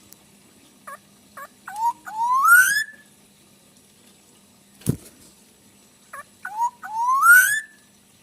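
Black-naped oriole (kepodang) calling twice: each phrase is a few short clipped notes followed by a long rising whistle. A single sharp click comes about midway between the two phrases.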